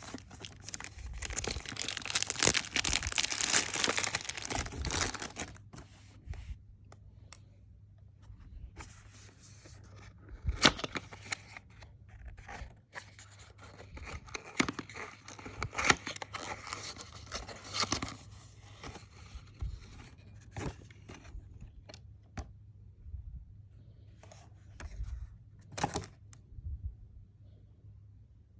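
Perfume box packaging being torn open and handled: a long stretch of tearing and crinkling for the first five seconds or so, then scattered crinkles and sharp clicks, the loudest near the middle.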